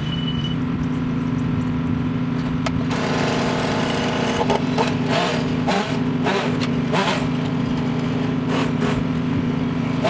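An engine hums steadily while a chainsaw revs in a string of short bursts from about three seconds in, cutting tree branches.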